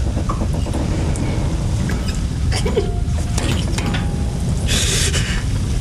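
Dramatic sound-design ambience: a heavy low rumble with scattered mechanical clanks, clicks and creaks, and a short hiss about five seconds in.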